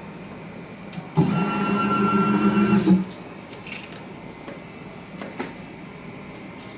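Small CNC IC engraving machine's motor running for about two seconds with a steady whine, starting abruptly and cutting off, followed by a few faint clicks.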